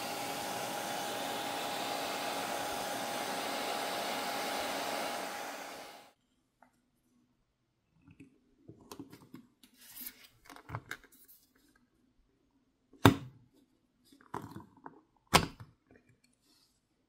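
Hairdryer blowing steadily, heating the phone's front to soften the screen adhesive; it cuts off about six seconds in. Then come scattered light scrapes and taps of tool work on the phone, with two sharp clicks a couple of seconds apart near the end.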